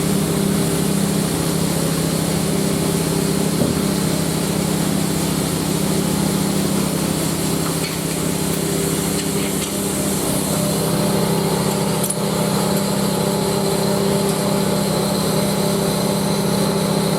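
An engine running steadily at a constant speed, with an unchanging hum.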